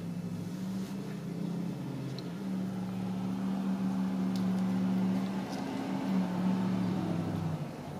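Ragdoll kitten purring: a steady low purr that shifts slightly every second or two and stops near the end.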